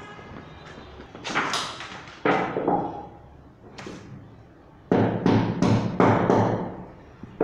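Bangs and knocks from work at a wall: a few separate bangs, then a quick run of about five sharp, loud knocks a little past halfway.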